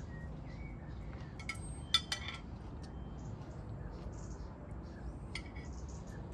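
Metal forks clinking and scraping against a plate and a glass bowl during a meal, a few sharp clinks with a brief ring, the loudest about two seconds in and another near the end. Faint birds chirping in the background.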